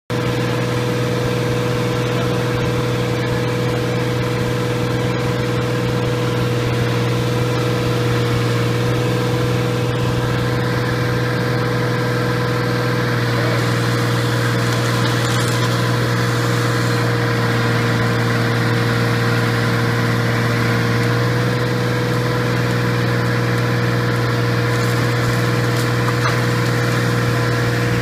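Engine running steadily at a constant speed with an even hum; the mix of sound changes slightly about halfway through but it never stops or revs.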